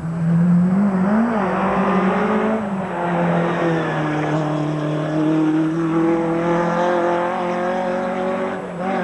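Simca 1000 rally car's engine driven hard at high revs on a tarmac stage. The note drops briefly as it changes gear about two and a half seconds in, then holds a steady, slowly rising pitch.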